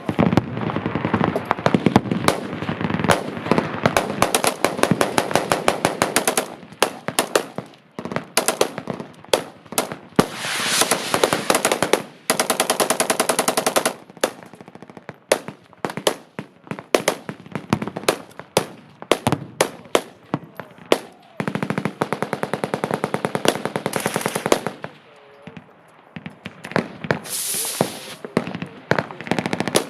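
Machine guns firing fully automatic bursts, rapid strings of shots lasting up to two or three seconds, overlapping with scattered shots in between.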